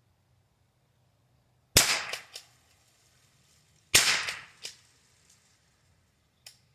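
Two shots from a Henry H003T pump-action .22 LR rifle, about two seconds apart, each sharp crack trailed by a few quieter clicks.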